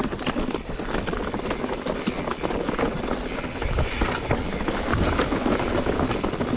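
Mountain bike rolling over a rough trail: tyres crunching on loose ground and the bike rattling, with gusts of wind rumbling on the microphone.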